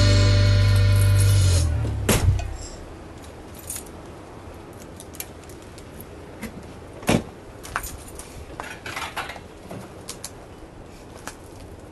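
Background music fades out over the first two seconds. Then keys jangle and the lock clicks as a fifth-wheel RV's entry door is locked by hand, with a sharper click about seven seconds in, followed by a few light clicks and knocks.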